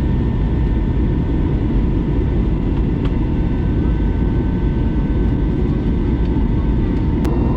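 Airbus A321neo cabin noise in the climb: a steady low rumble of the engines and airflow, with several faint steady whine tones above it. A single sharp click near the end.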